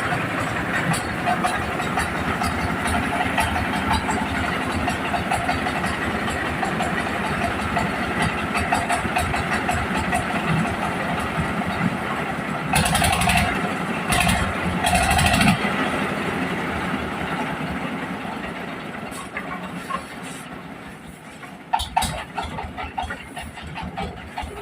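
Engine-driven corn sheller running steadily, with two louder surges about halfway through. The sound then dies away over the last third, leaving a few scattered knocks.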